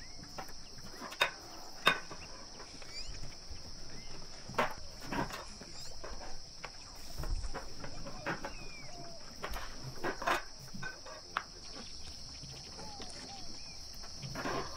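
Long thin rolling pin working a thin sheet of dough on a wooden table, giving short sharp knocks, the two loudest about a second and two seconds in and more scattered after. Under them runs a steady high-pitched drone.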